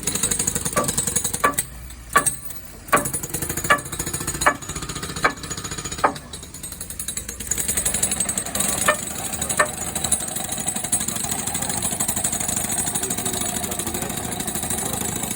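Construction machinery running with a fast, steady rattle. Sharp knocks come about every three-quarters of a second through the first ten seconds, then the machine runs on steadily.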